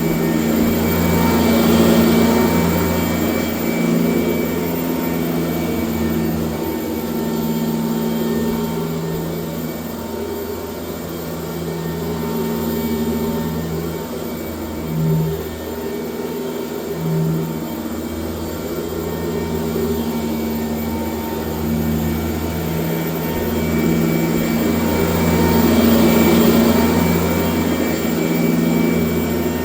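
1996 Sanitaire S663 Type A upright vacuum cleaner running steadily in use, its level swelling and easing slowly as it is worked, with two short low bumps about halfway through.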